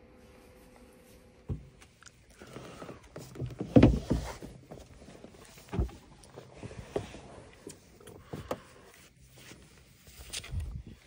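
Irregular knocks and thumps with some rustling between them, the loudest a cluster about four seconds in.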